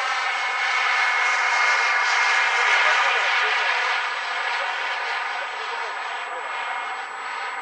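Radio-controlled model jet's small turbine engine whining as the plane flies by high overhead. It swells to its loudest about three seconds in, then slowly fades.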